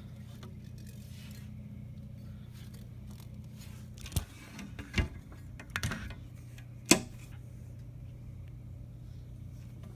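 Steady low electrical hum with a few short, sharp clicks or taps between about four and seven seconds in.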